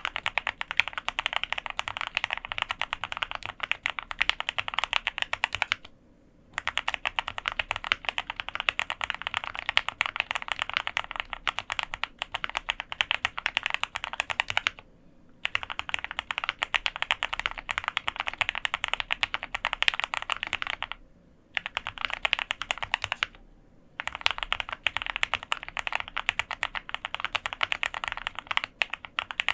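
Fast typing on a QK65 custom mechanical keyboard with lubed Gateron Ink Black linear switches, GMK keycaps and an aluminum plate: a dense stream of keystroke clicks. It stops briefly four times.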